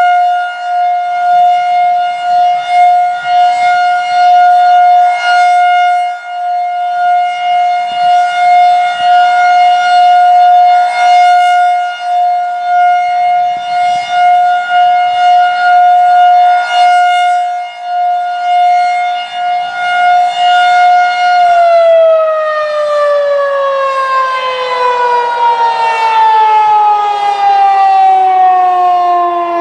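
Federal Signal 2001-DC rotating outdoor warning siren sounding its steady Full Alert tone, a single high-pitched wail that swells and fades about every three seconds as the rotating head sweeps past. About 21 seconds in the tone cuts off and the siren winds down, its pitch falling steadily.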